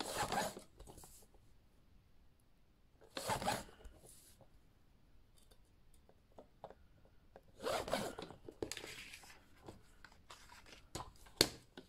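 Sliding paper trimmer cutting card: three short swipes of the cutting head along its rail, at the start, about three seconds in and about eight seconds in. Paper handling and a few sharp clicks near the end.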